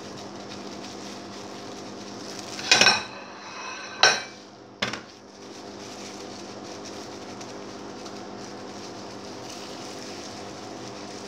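Stainless steel mixing bowl knocked and set down: two ringing metallic clangs about a second apart, then a shorter dull knock, over a steady low hum.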